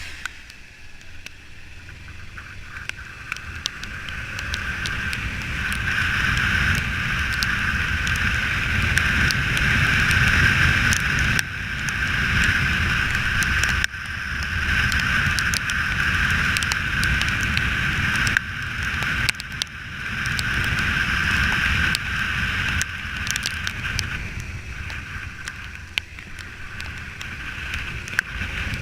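Kawasaki Ninja 300 parallel-twin motorcycle riding, engine and wind noise building over the first several seconds, with a few short dips in the sound along the way.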